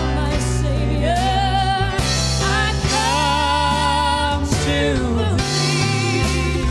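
A woman singing a hymn live in a country-gospel style, holding notes with vibrato, backed by a band with steady sustained low notes underneath.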